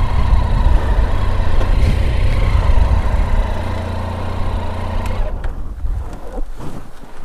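Triumph Tiger 800's three-cylinder engine running steadily with road noise as the motorcycle rides along a dirt track, quietening about five seconds in.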